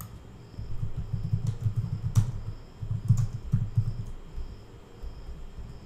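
Typing on a computer keyboard: quick runs of keystrokes with short pauses between them, busiest in the first four seconds, with a few sharper clicks.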